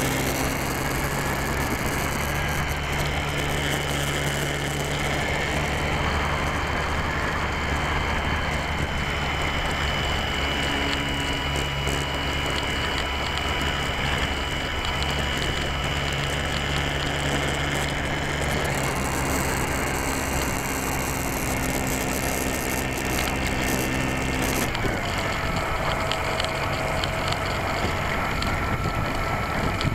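Onboard sound of a Slow Stick model plane's electric motor and propeller, a steady whine with air rushing past the small onboard camera. The motor's pitch drops about 25 seconds in.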